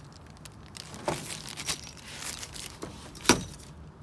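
Metal door hardware, such as stainless steel door handles, clinking and knocking as it is handled, with a few light clinks and one louder clank a little over three seconds in.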